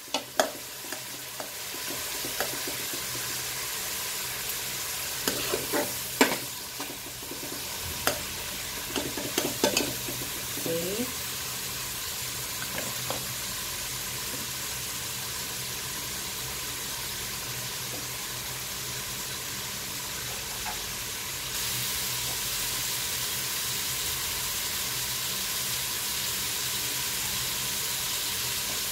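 Prawns frying in butter with garlic and onion in an aluminium pot: a steady sizzle, with a metal spoon scraping and clicking against the pot during the first ten seconds or so. About twenty seconds in the sizzle gets a little louder.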